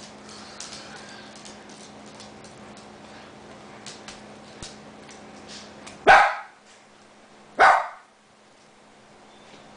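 A dog barking twice, two sharp barks about a second and a half apart, after a few seconds of faint scattered clicks.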